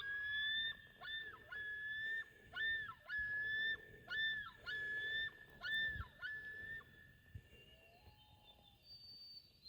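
Repeated clear whistled animal calls: a string of held notes, each dipping in pitch at its end, running for about the first seven seconds and then fading to faint tones.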